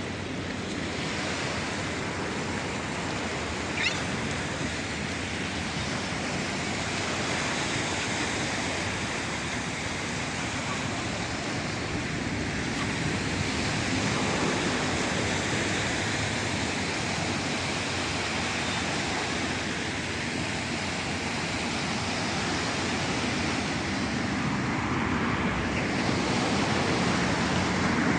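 Small waves washing steadily over a pebble shore, with wind buffeting the microphone. A brief sharp click about four seconds in.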